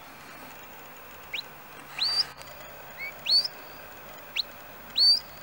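Shepherd's whistle commands to a working sheepdog: three calls, each a short rising chirp followed by a longer, louder whistle that sweeps up and holds high.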